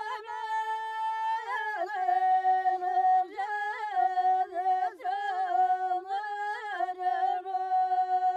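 A single high voice singing a slow, unaccompanied melody: long held notes broken by quick ornamental turns, ending on one long held note.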